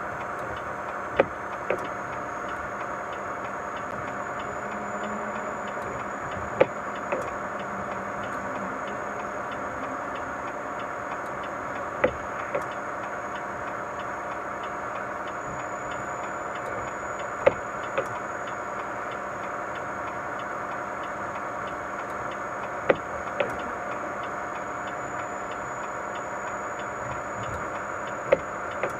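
Vehicle driving across the Mackinac Bridge: steady tyre and road hum, broken about every five and a half seconds by a pair of sharp knocks half a second apart, as the wheels cross the joints in the deck.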